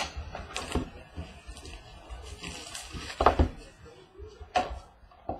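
Cardboard trading-card boxes and packs being handled as a new box is opened: scattered rustling and a few light cardboard knocks, the loudest about three seconds in.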